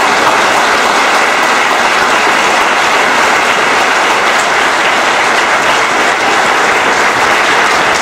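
Large crowd applauding, loud and steady, a dense even clapping.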